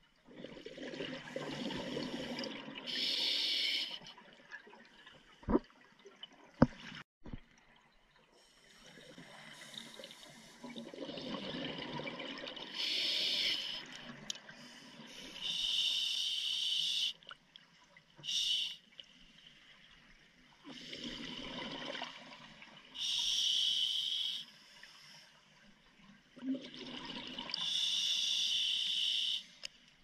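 Scuba diver breathing through a regulator underwater: repeated breaths, each a stretch of rushing bubble noise followed by a short hiss, about five in all. A few sharp clicks about five and a half to seven seconds in.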